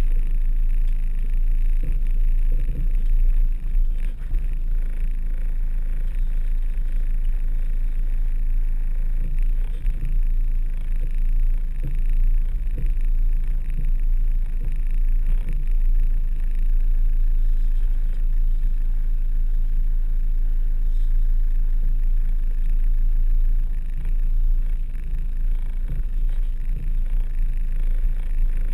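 Volkswagen T3 Syncro van's engine running low and steady, heard from inside the cab as the van crawls slowly off-road, with occasional light knocks from the body.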